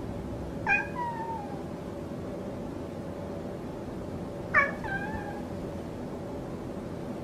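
A grey tabby cat meowing twice, about four seconds apart; each meow is short and slides down slightly in pitch.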